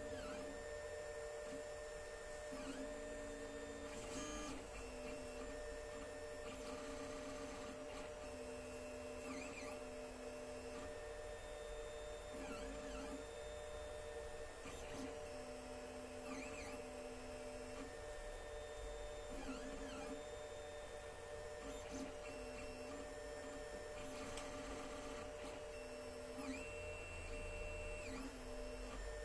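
Alfawise U10 FDM 3D printer printing: its stepper motors whine in short tones that start, stop and change pitch every second or two as the print head and bed move, over the steady hum of the print head's cooling fans.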